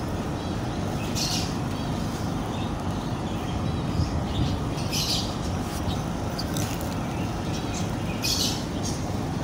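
Birds squawking in short harsh calls: once about a second in, again at about five seconds and again near the end, over a steady low background rumble.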